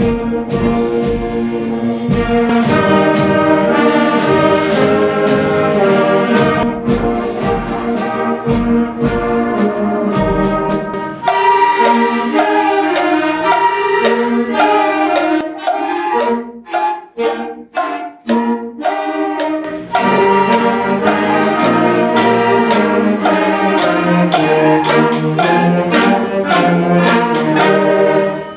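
A concert band playing, with brass in front. Drum strokes sound under the band for the first ten seconds or so; around the middle the music thins into short detached chords with gaps between them, then the full band comes back in.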